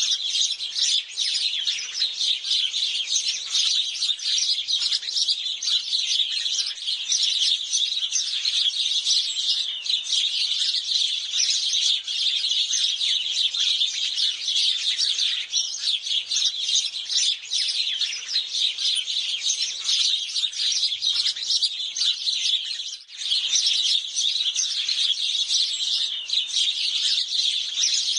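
A flock of sparrows chirping continuously, many short overlapping chirps at once, with a brief lull about three-quarters of the way through.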